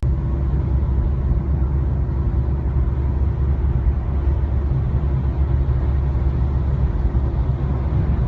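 Four-row corn harvester's engine running steadily: a constant low drone with no change in speed.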